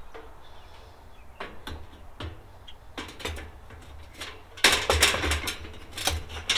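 Parts of a Kero-Sun Omni 85 kerosene heater being handled and set back in place: scattered light clicks and knocks, then a louder busy clatter in the last two seconds.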